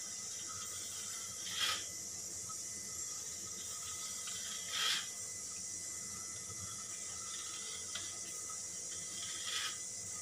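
A knife drawn through a thinly rolled, oiled sheet of paratha dough, scraping the work surface as it cuts thin strips: three short swishes a few seconds apart over a steady background hiss.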